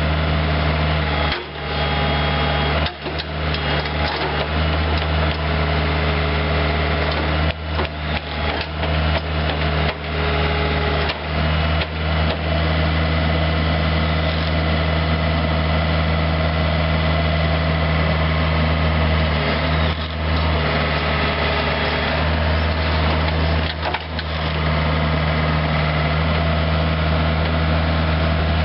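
Isuzu four-cylinder diesel engine of a 2004 John Deere 50C ZTS compact excavator running steadily, with a few brief dips and knocks along the way.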